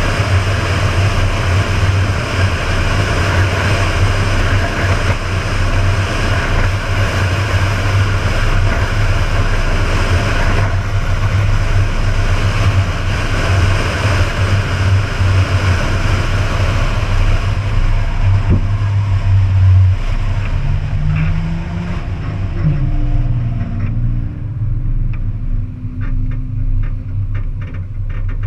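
Wind rushing over a truck-mounted camera at highway speed, over a steady low drone of engine and road noise. About two-thirds of the way through the wind noise eases as the truck slows, and the engine's pitch rises and falls a few times.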